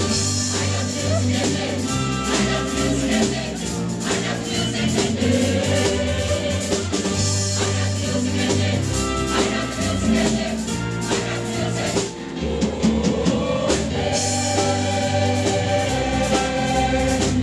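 A choir singing with instrumental accompaniment: a steady bass and percussion.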